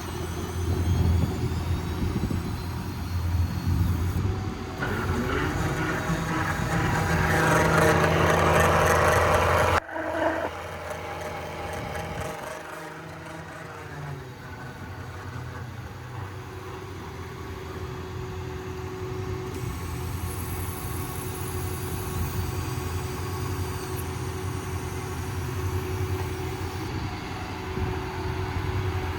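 Ford F-550's 6.7-litre Power Stroke V8 diesel running, rising in pitch and getting louder from about five seconds in. It drops away suddenly near ten seconds, leaving a steadier, quieter idle.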